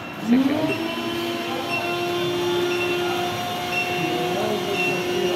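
Robotic cotton candy vending machine running: a motor whine rises in pitch about a quarter-second in, then holds as a steady machine hum while the robot arm spins the stick in the sugar bowl.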